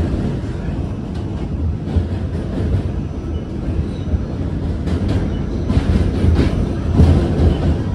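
R46 subway train running across the steel Manhattan Bridge, heard from inside the car: a steady rumble of wheels on rail, with clacks over rail joints, a few louder ones in the second half.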